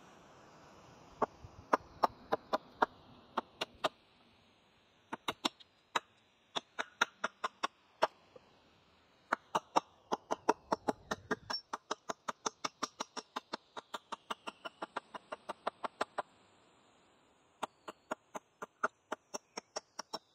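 Small hatchet chopping at the end of a debarked wooden pole propped on a wooden block, shaping it in short quick cuts: sharp wooden chops in irregular bursts, then a fast steady run of about four a second in the middle, a short pause, and more chops near the end.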